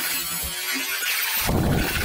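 Angle grinder's abrasive disc cutting into steel channel: a loud, rough grinding hiss that fills out with a deeper, heavier grind about one and a half seconds in as the disc bites harder.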